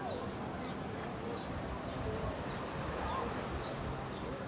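Beach ambience: a steady wash of wind and surf, with faint high bird chirps repeating about twice a second and distant voices.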